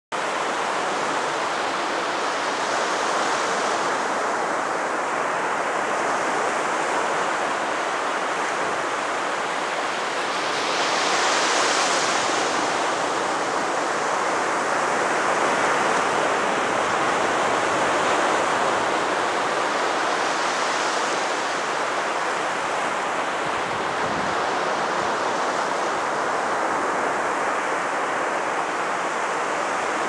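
Small ocean waves breaking and washing up the sand at the shoreline: a continuous rushing hiss that swells as a wave breaks, three times, loudest about a third of the way through.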